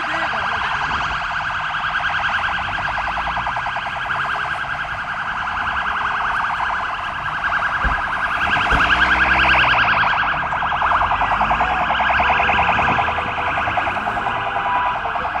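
Emergency vehicle siren sounding continuously with a rapid warbling pulse; a slower rising-and-falling wail swells about halfway through.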